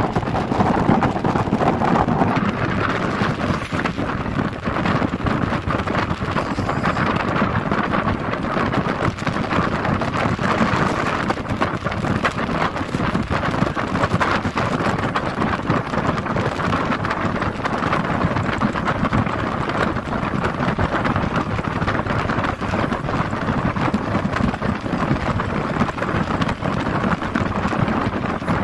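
Steady rush of wind and road noise from a moving minibus, a constant roar with no breaks.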